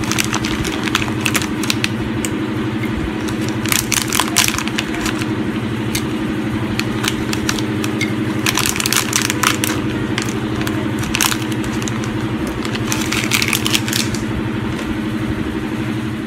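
Pieces of dry cinnamon bark and bay leaf dropped by hand into a slow-cooker pot of fish and vegetables, making scattered light crackling clicks in several clusters. A steady low mechanical hum runs underneath.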